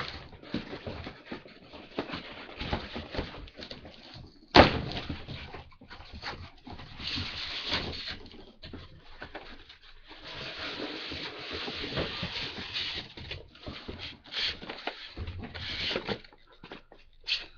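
Packaging and items being handled: irregular rustling with scattered clicks and knocks, and one sharp loud knock about four and a half seconds in.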